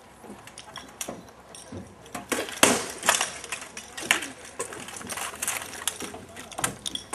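Rattan weapons striking shields and armour in SCA armoured combat: a quick run of sharp knocks starting about two seconds in, the loudest blow about half a second later.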